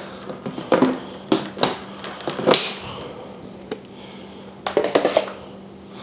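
Scattered knocks and clicks of the carpet cleaners' hard plastic parts being handled, a few taps with a short ring, over a faint steady hum.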